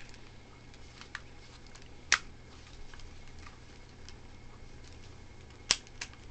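A handful of short, sharp clicks and taps from a plastic Beyblade launcher grip being handled, the loudest about two seconds in and near the end, over a low steady hum.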